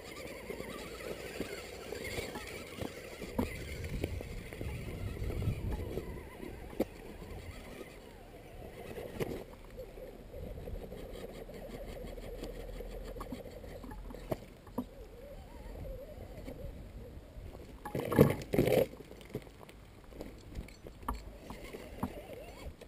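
Footsteps scuffing and crunching over rocky ground, with scattered small knocks, and two loud short bursts about 18 seconds in.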